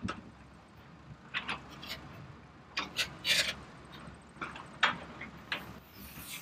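Scattered plastic clicks and knocks with a short scrape about three seconds in, from a Bruder toy crane truck being worked by hand as it lifts a charred wooden beam.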